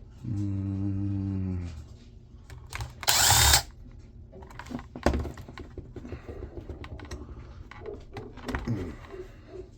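A power drill runs for about a second and a half with a steady motor pitch. About three seconds in comes a short, loud rasping burst, followed by scattered clicks and rattles of plastic casing and parts being handled.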